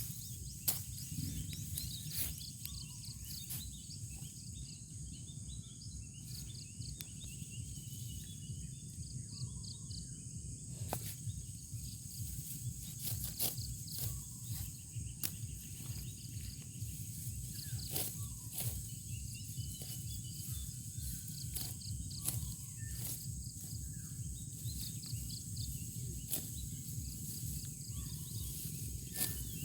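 Steady high-pitched insect chirring over a rice field, with scattered sharp clicks and rustling from rice stalks being harvested by hand, over a low rumble.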